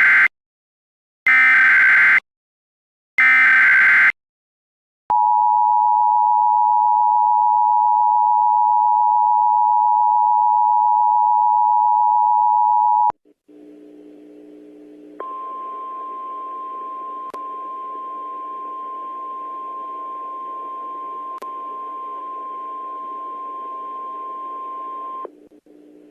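Emergency Alert System tones: three short screeching data bursts (the SAME header), then a loud steady two-tone attention signal for about eight seconds. After a brief pause, a quieter single steady tone sounds over a low hum for about ten seconds, then cuts off.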